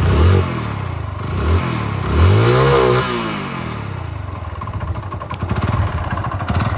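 Hero Passion Plus single-cylinder four-stroke motorcycle engine blipped three times, the last rev the longest, then running at idle with a rapid rattling knock. This is the sound of a failed engine, which the mechanic puts down to a badly knocking connecting rod.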